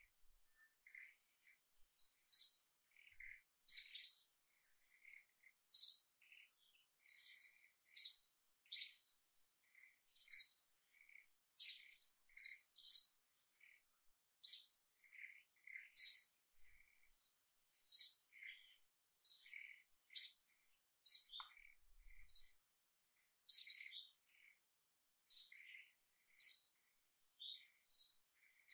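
A bird chirping over and over: short high chirps, roughly one a second at an uneven pace. A faint, steady high insect tone runs behind.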